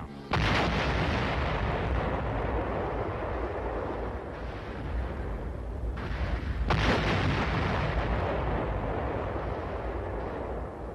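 Two large demolition explosions: each starts suddenly and trails off in a long, slowly fading rumble, the second about six and a half seconds after the first. Charges set on the port are being blown so nothing usable is left behind.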